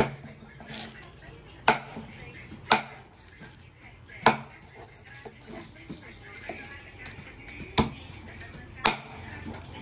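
Large kitchen knife chopping through grilled pork belly onto a wooden chopping block: six sharp knocks at uneven intervals, one every one to three seconds.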